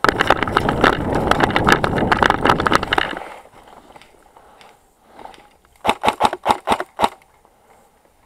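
Loud rustling and scuffing of a player pushing through dry brush and undergrowth for about three seconds. Later come about seven sharp clacks in quick succession.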